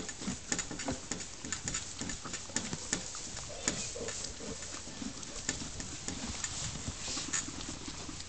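A horse eating, chewing its feed with many irregular crunches and clicks.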